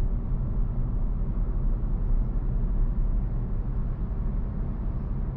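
Steady low road rumble inside a moving car's cabin: tyre and engine noise.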